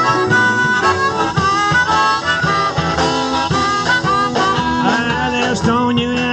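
Live band music led by a harmonica solo, with bending, wailing notes played into a vocal microphone over electric guitars and a steady drum beat.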